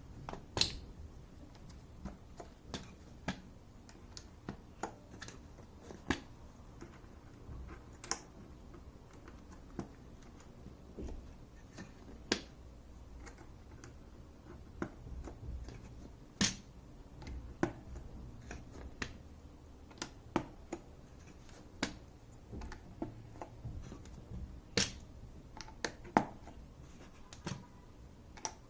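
PBT pudding keycaps being pressed onto mechanical keyboard switches, giving irregular sharp plastic clicks about once a second, a few of them louder.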